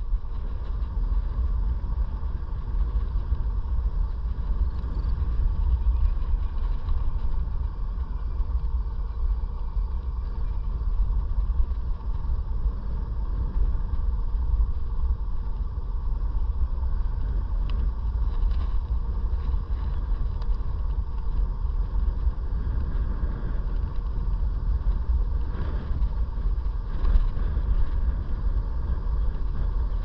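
Riding an iScooter E9D electric scooter: wind rumbles on the microphone over a steady whine and tyre noise.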